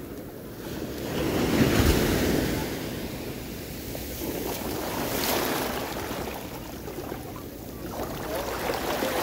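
Ocean surf washing up the beach, swelling about two seconds in and again around five seconds in, with wind on the microphone.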